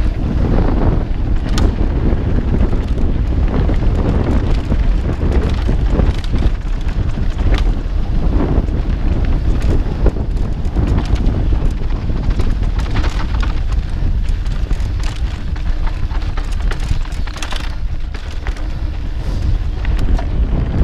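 Wind buffeting a GoPro's microphone as a mountain bike rides fast over dry dirt singletrack, a steady heavy rumble with frequent rattles and knocks from the bike jolting over the rough trail.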